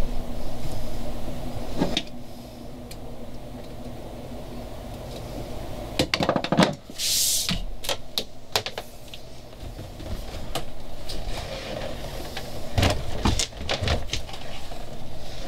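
Knocks, rubbing and clatter as marine triplex cable is fed and pulled through a boat's centre console. There is a short hiss about halfway through and a cluster of knocks near the end.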